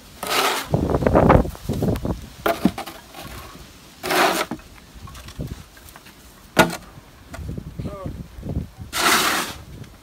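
Metal snow shovel scraping snow off a paved walk in a series of short strokes, with one sharp knock of the blade about six and a half seconds in.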